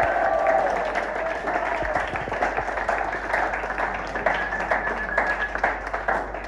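Small audience applauding, dense hand clapping that slowly dies down.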